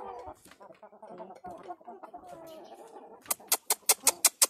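A flock of light Brahma chickens clucking. About three seconds in, a quick run of sharp clicks starts, about five a second, louder than the clucking.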